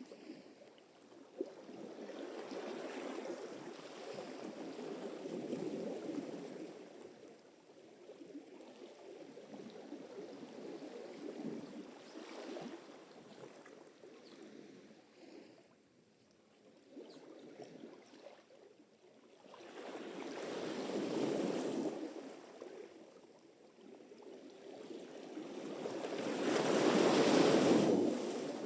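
Sea surf: waves rolling in and washing up the shore in slow surges that swell and fade every several seconds, the loudest breaking near the end.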